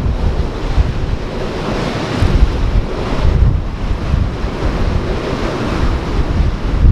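Ocean surf washing in continuous surging waves, with strong wind buffeting the microphone in low rumbling gusts.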